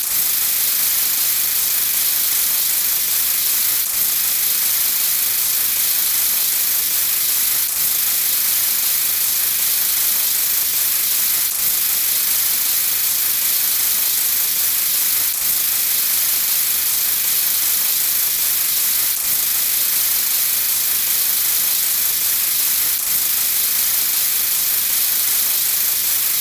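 A steady, loud hissing spray sound effect, looped with a faint seam about every four seconds.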